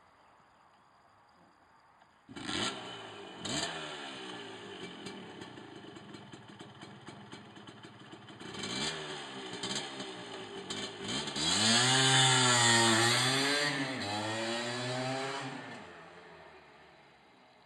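1979 Suzuki TS125ER's single-cylinder two-stroke engine catching about two seconds in, then running with blips of throttle. It revs up through the gears as the bike pulls away and fades into the distance.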